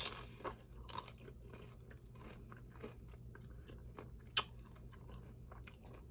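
Close-up chewing and crunching of nacho chips (corn chips with chili, sour cream and cheese): scattered soft crunches and bites, the sharpest right at the start and another about four seconds in.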